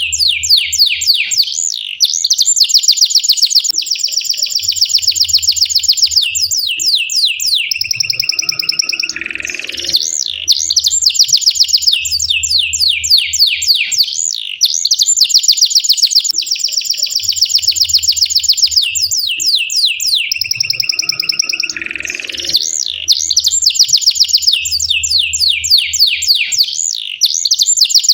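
Domestic canary singing long, rapid rolling trills, with a short lower held note and rising glide breaking the rolls twice.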